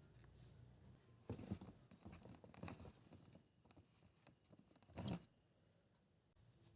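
Quiet handling noises: scattered soft rustles and taps, with one sharper knock about five seconds in.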